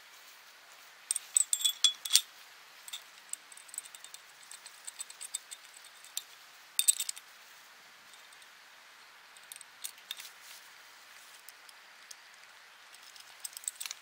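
Small metallic clinks and ticks of a bolt and nut being handled and fitted through a steel adapter plate on the foot of a high-lift jack. The clinks come scattered, with louder clusters about a second in and near seven seconds.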